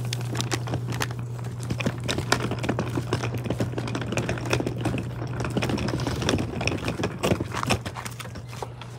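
Footsteps crunching and scuffing on a grit-covered paver path beside gravel, a fast irregular patter of small clicks that thins out near the end, over a steady low hum.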